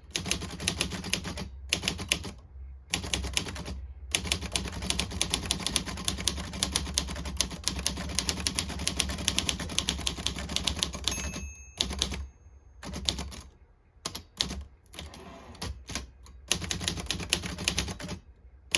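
Olivetti Lettera 22 manual portable typewriter being typed on in fast, rapid runs of typebar strikes, with short pauses between bursts. Near the middle, a brief ring is heard, the margin bell, followed by a pause.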